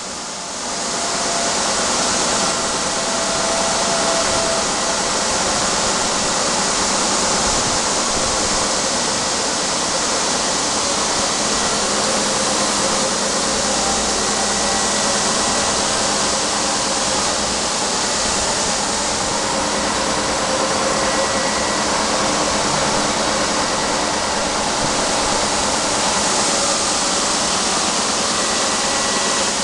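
Carton labelling and printing machine running: a steady mechanical whir and hiss with a faint hum underneath, unchanging throughout.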